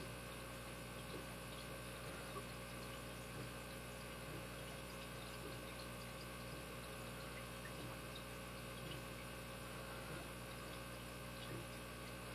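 Faint steady hum and hiss of background noise, with a few faint light ticks of a small tool working at the lock core's spring-loaded retainer clip.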